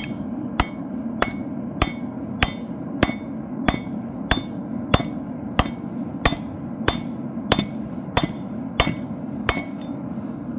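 Hand hammer striking a steel chisel held on a red-hot railroad spike, cutting the eye slot for a tomahawk head: about sixteen evenly paced metallic hits, roughly one and a half a second, that stop shortly before the end. A steady rush from the lit forge runs underneath.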